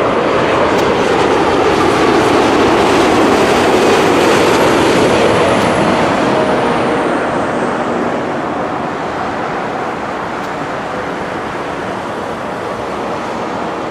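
Airliner's engines at takeoff power as it passes on its takeoff run, a loud rushing roar that peaks about four seconds in and then slowly fades, with a high whine falling in pitch over the first eight seconds.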